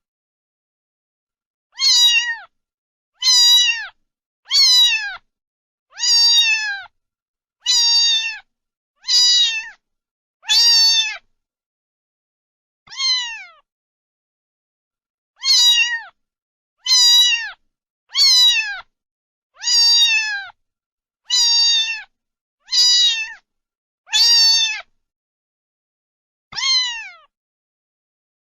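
Domestic cat meowing over and over: about sixteen short meows, each rising and then falling in pitch, roughly one every second and a half, with two longer pauses.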